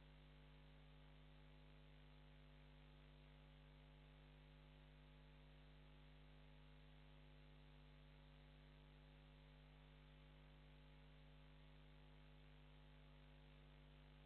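Near silence: a faint, steady electrical mains hum with light hiss, unchanging throughout.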